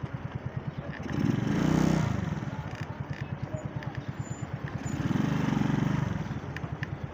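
Small motorcycle engine running with a fast, even putter as the bike is ridden, revving up twice and easing off again, about a second in and again near the middle.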